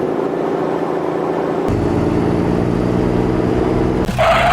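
A motor vehicle engine running steadily, with a deeper rumble joining about a second and a half in. Near the end a louder, brighter noise cuts in.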